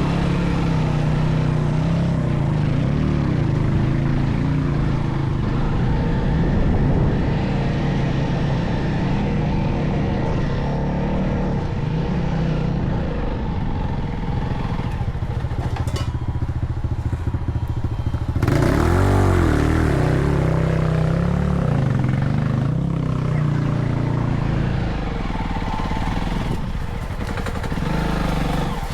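Vehicle engine running while on the move. It eases off for a few seconds past the middle, then picks up again with rising revs.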